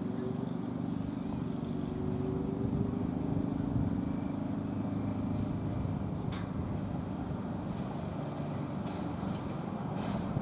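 Steady low background noise of an outdoor football stadium: crowd murmur and field ambience, with a few faint clicks.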